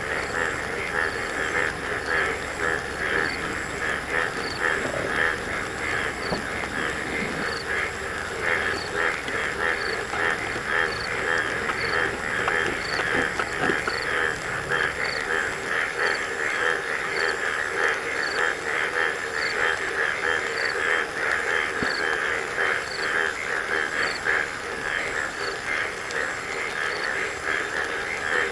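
A steady, dense chorus of calling animals, a fast pulsing churr, with a faint high note repeating about once a second above it.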